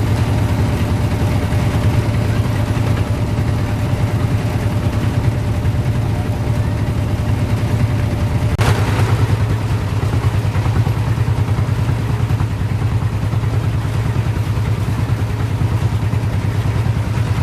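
Small engine running steadily at an even speed, with one short knock about eight and a half seconds in.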